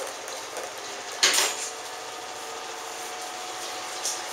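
Brief clatter of plastic play balls as a Shetland Sheepdog puppy noses into the ball tub, about a second in, with a smaller knock near the end over a faint steady hum.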